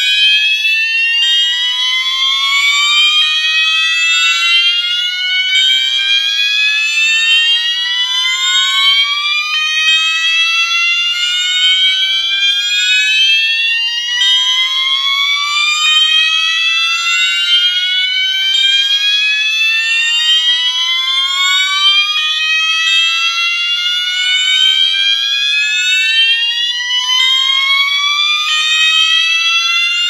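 Three electronic fire alarm horns, a System Sensor MASS-24D, a Wheelock MT-24-WM and a Gentex GOS, sounding together on the slow whoop tone: repeated rising sweeps about four seconds long. The horns cycle at slightly different rates, so their whoops overlap out of sync. The MASS-24D is the loudest, because the other two are not set to high volume.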